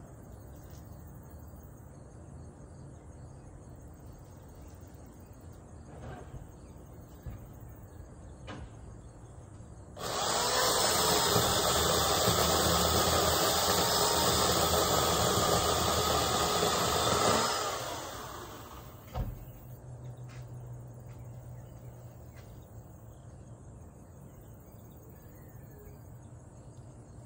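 Electric chainsaw running at full speed for about seven seconds. It starts abruptly about ten seconds in with no pull-start or idle, runs steadily, then winds down quickly when the trigger is released. A single sharp knock follows shortly after.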